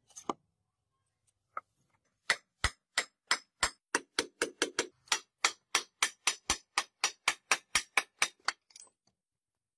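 A hammer striking repeatedly at an even pace, about three to four blows a second for around six seconds, after a couple of single knocks.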